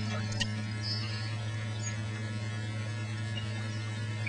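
A steady low electrical hum, a single unchanging tone with a weaker overtone above it, with a faint click or two about half a second in.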